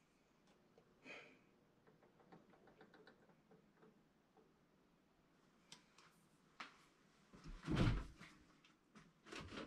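Faint taps and clicks of a small glass jar with a metal lid being handled. Near the end come a few knocks and one heavier thump as a kitchen door is worked.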